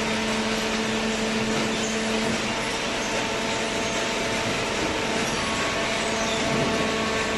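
Hydraulic cardboard baler running: its electric motor and hydraulic pump give a steady hum with a whine. One of the lower tones drops out about two and a half seconds in.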